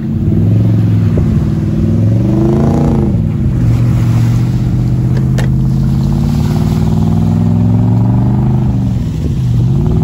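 Four-wheel-drive engine working under load as it tows a boat trailer up soft beach sand, running loud and steady, with the revs rising and falling about two to three seconds in and dipping and climbing again near the end.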